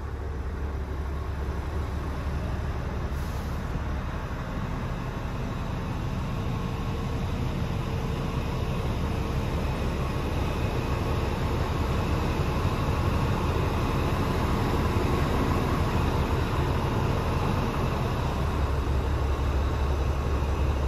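Scania R420's 12-litre six-cylinder diesel engine idling steadily, heard from inside the cab.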